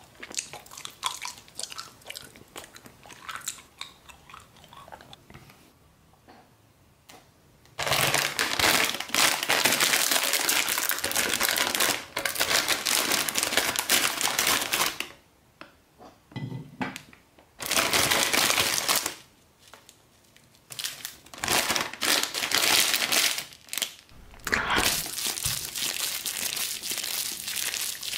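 Plastic-foil instant noodle packet crinkling and crackling as it is handled, opened and crumpled, with the dry noodle block pulled out; the crinkling comes in several loud spells with short pauses, after a quieter start of faint clicks.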